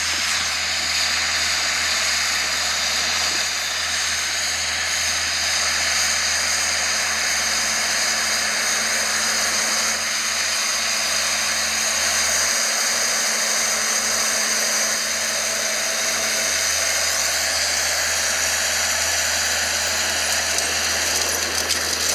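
A machine running steadily with a strong hiss and a low hum, unchanging in pitch.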